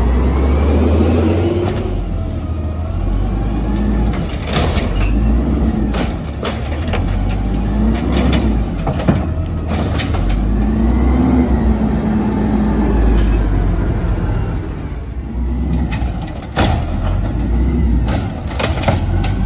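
Engine of a 2007 American LaFrance Condor automated side-loader garbage truck running and revving up and down as the truck moves off down the street, with several sharp clunks from the truck.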